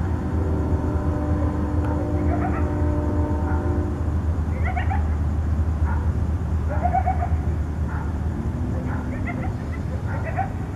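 A group of coyotes contact calling: quick clusters of high, wavering yips and short howls come again and again about every second or two. A steady low rumble runs underneath.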